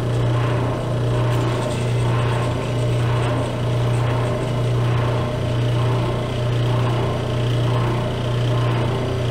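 Electric oil pump motor of a Lanair XT300 waste oil heater running with a loud, steady hum that swells slightly about every three-quarters of a second. The pump is being primed, with its bleeder screw open to bleed air out of it.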